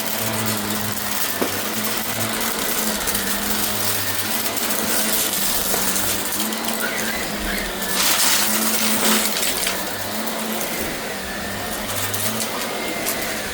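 Shark vacuum cleaner running, a steady motor hum under a rush of air, with scattered clicks and rattles. It gets louder for a second or so about eight seconds in.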